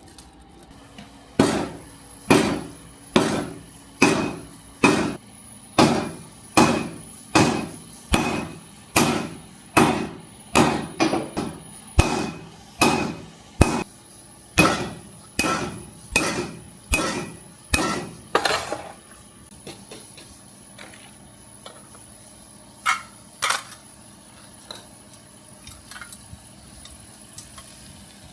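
Hammer blows on steel at an anvil during forging of a Damascus billet, a steady run of about twenty strikes a little under a second apart, each with a brief metallic ring. The strikes stop, and two lighter taps follow a few seconds later.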